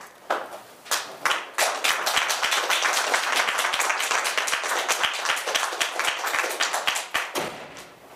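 Audience applauding: a few scattered claps at first, building to full applause about a second and a half in, then stopping fairly abruptly near the end.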